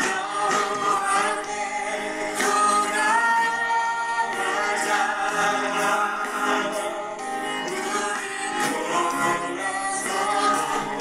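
Korean Christian praise songs playing from a laptop's speakers: a sung melody over accompaniment, one performance giving way to another, with male singers partway through.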